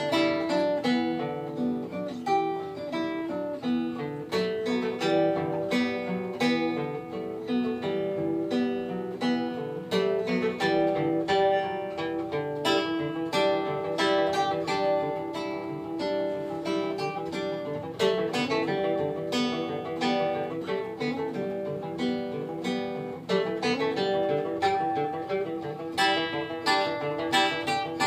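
Instrumental background music on acoustic guitar, with quick picked notes.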